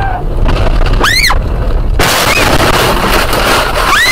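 A car colliding with a tractor. Over road noise a short high squeal rises and falls, then about two seconds in a sudden loud crash of the impact begins, and the noise of crunching metal and the windscreen shattering carries on. A second short squeal comes near the end.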